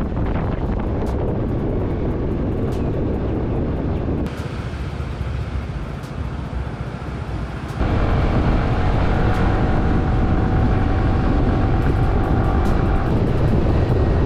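Wind rushing over the microphone of a moving motor scooter, with engine and road noise underneath. The sound drops abruptly about four seconds in and comes back louder at about eight seconds, with steady tones over it.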